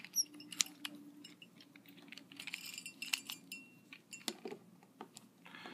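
Hard plastic pieces of a 3D-printed twisty puzzle cube clicking and knocking against each other as they are fitted into place by hand: irregular small clicks throughout.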